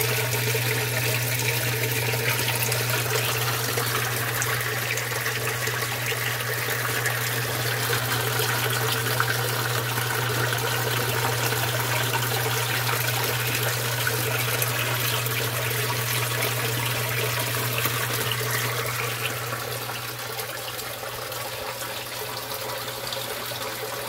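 Water from a filter outlet pouring and splashing steadily into a turtle tank, over a steady low hum, a little quieter near the end.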